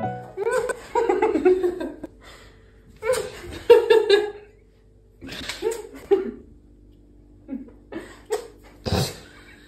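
A woman laughing and making playful wordless sounds in short bursts, with a sharp, louder burst of breath near the end.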